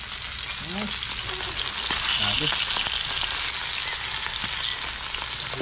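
Tuyo (salted dried fish) frying in hot oil in a pan, a steady sizzle.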